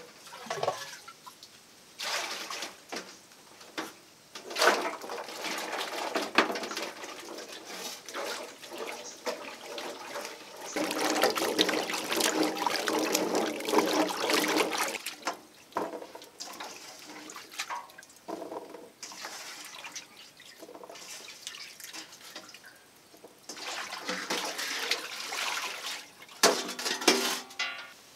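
Water sloshing and splashing in a metal basin as hands scrub freshly dug turmeric rhizomes, with irregular splashes and drips; the sloshing is busiest and most continuous about halfway through.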